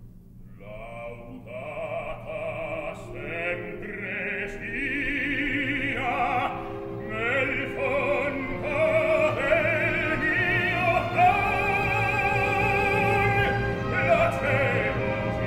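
Operatic baritone singing in Italian with wide vibrato over a full orchestra, starting about a second in and growing steadily louder through the passage.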